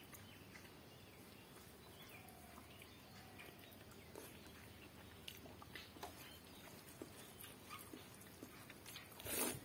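Quiet mouth sounds of a person eating rice and fish curry by hand: soft chewing with small scattered wet clicks. Near the end there is one brief, louder rush of noise.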